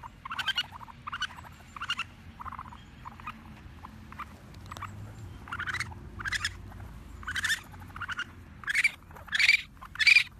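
Baby raccoons crying: a quick series of short, high, chirping cries, a little more than one a second, that sound very like a chirping bird and grow louder near the end. This is the cry that young raccoon kits make when they are hungry, calling their mother to feed them.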